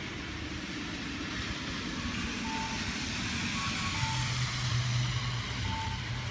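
Street traffic on a rain-wet road: a steady hiss, with a car's engine hum growing louder from about four seconds in as it approaches. Short two-note electronic beeps repeat a few times.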